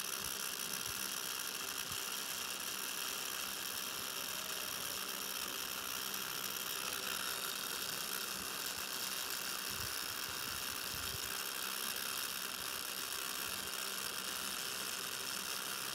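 Tattoo machine running steadily as its needle lines an outline into skin.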